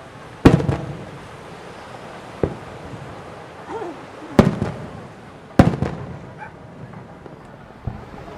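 Aerial firework shells bursting: three loud booms, about half a second in, then at about four and a half and five and a half seconds, with two smaller bangs between and after, each followed by a rolling echo.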